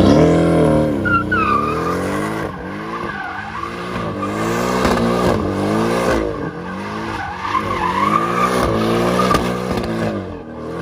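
Porsche 718 Cayman doing donuts: the engine revs rise and fall over and over, about once a second, while the rear tyres squeal as they spin on the asphalt.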